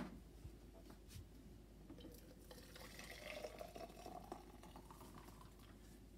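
Water poured from a kettle into a stainless steel gooseneck pour-over kettle, a faint pour of about two seconds in the middle that rises slightly in pitch as the vessel fills. A light click at the start and a couple of small knocks.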